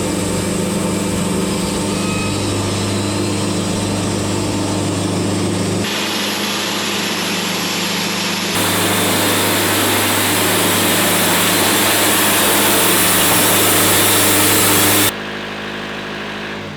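Mobile Dimension sawmill running under load as its blade cuts through a log. The cut grows louder about halfway through and ends abruptly near the end, leaving the engine running lighter.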